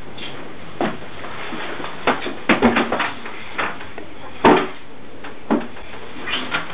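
Scattered short knocks and rustles from two people moving and bumping against each other and the bed, about eight irregular hits over a steady hiss. The loudest knock comes about halfway through.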